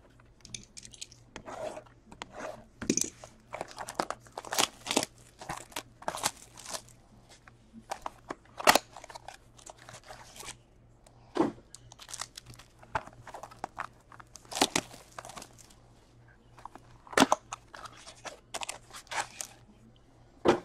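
A trading-card hobby box being opened by hand and its wrapped card packs pulled out and handled, with irregular bursts of crinkling and tearing from the packaging.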